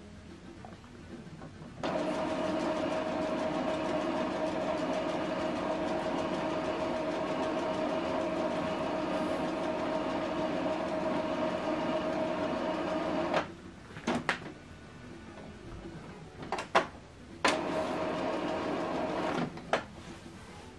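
Epson XP-4205 inkjet printer running its first initialization after new ink cartridges are fitted: its mechanism starts with a steady whine about two seconds in, runs for about eleven seconds and stops suddenly. A few sharp clicks follow, then a second run of about two seconds and one more click.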